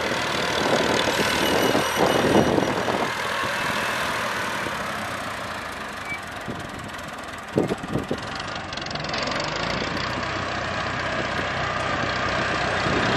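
Massey Ferguson 265 tractor's diesel engine running as it drags a sand-levelling blade across the field. It fades as the tractor pulls away and grows louder again as it comes back near the end, with a few short knocks a little past halfway.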